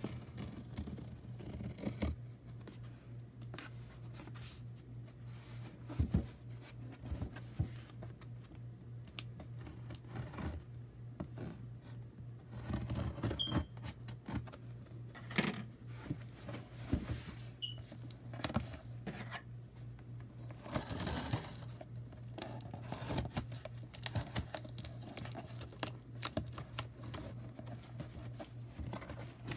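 Hands unpacking a tarot deck's packaging: paper and plastic crinkling and tearing, with scattered taps and knocks over a steady low hum. The handling gets busier in bursts a little before and after the middle.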